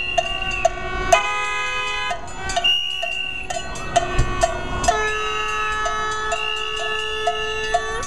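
Protest noisemakers: cowbells struck in a steady beat, about two to three strikes a second, over several overlapping held horn blasts at different pitches.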